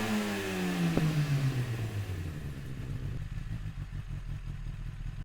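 2016 Kawasaki ZX-10R's inline-four engine falling back from a rev, its pitch dropping steadily for about two and a half seconds before settling into a low, even idle.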